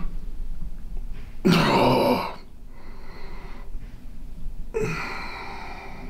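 A man's loud groan of pain about one and a half seconds in, and a shorter, weaker one near the end, as deep pressure is worked into his neck and shoulder muscles.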